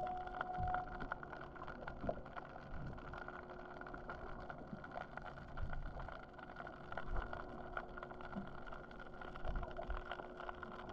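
Underwater sound picked up through a GoPro's waterproof housing: a steady mechanical hum with a constant tone, broken by scattered low thumps and short clicks. A second, higher tone fades out about a second in.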